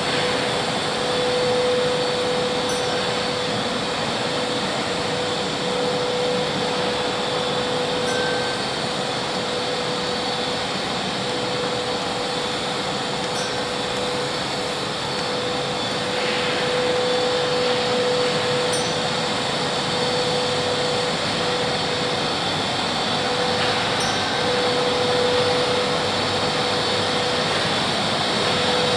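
Electric drive mechanism of a moving nativity scene running steadily: an even mechanical hum with one constant mid tone, and a faint tick about every five seconds as the mechanism cycles.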